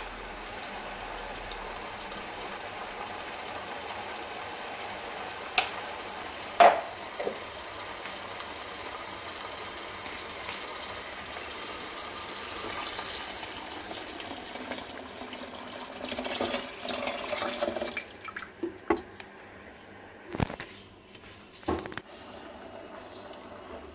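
Hot water poured steadily into a pot of soup for about sixteen seconds, with a couple of sharp clinks partway. Then the pouring stops and a few short knocks follow.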